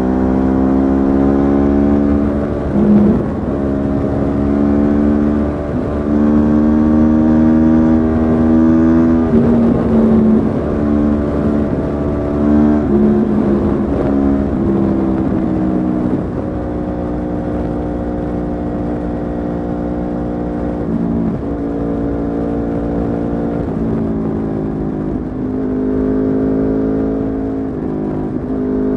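Yamaha R1's inline-four engine through an Akrapovic exhaust, pulling up through the gears: the pitch climbs and drops back at each gear change, about five times in the first half, then the engine runs more evenly with only small rises and dips.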